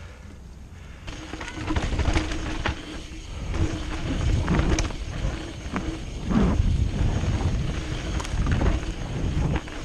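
Mountain bike descending a dirt trail at speed: tyres on dirt and the bike's chain and frame rattling and knocking over bumps, with a low wind rush on the helmet-mounted microphone. It gets louder about a second in.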